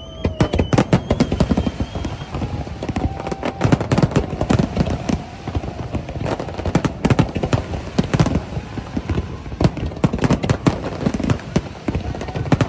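Fireworks going off in rapid, irregular succession: a dense run of sharp bangs and crackles, some louder than others.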